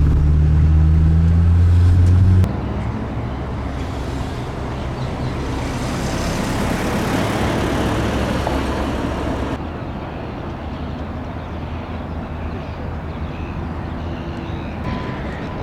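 Road traffic noise of vehicles passing. A loud low engine drone fills the first couple of seconds and then stops abruptly.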